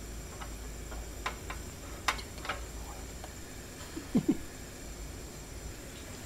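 Eating sounds: light clicks of chopsticks against a small bowl over a steady low hum, with a brief low voice-like sound a little after four seconds in.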